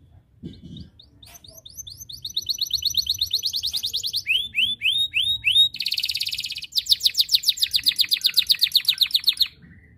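Yellow domestic canary singing one long song of rapid, high trills: a run of about four slower swooping notes midway, then a short buzzy rattle and a final fast trill that stops about half a second before the end.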